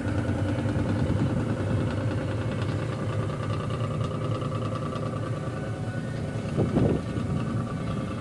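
Tugboat engine running steadily with a low hum, and a brief louder sound a little over six seconds in.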